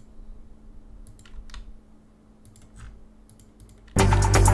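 A few faint clicks at a computer, spaced irregularly. About four seconds in, a news clip starts playing loudly, with music and a man's voice.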